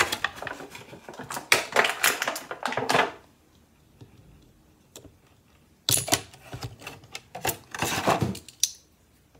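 Plastic toy packaging being handled and pulled open, a dense crackle and clicking of hard plastic, in two spells of about three seconds with a quiet gap between.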